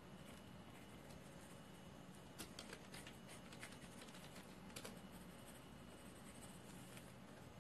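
Faint scratching of a graphite pencil on paper as short strokes are drawn. There is a quick run of strokes about two and a half seconds in and another just before five seconds, over a low steady room hum.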